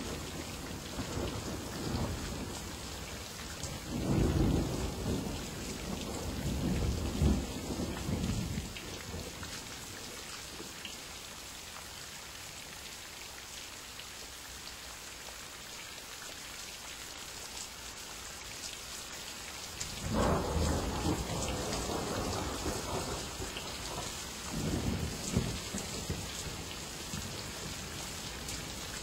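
Thunderstorm: steady rain hissing, with rolling thunder. A long rumble comes about four seconds in, another about two-thirds of the way through, and a shorter one soon after it.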